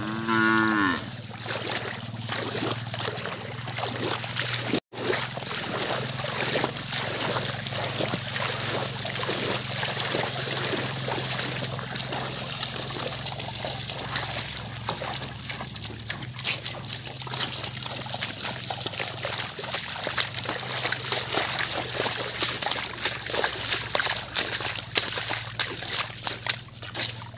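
Cattle and the person leading them wading through shallow floodwater, hooves and feet splashing and sloshing in a run of irregular steps.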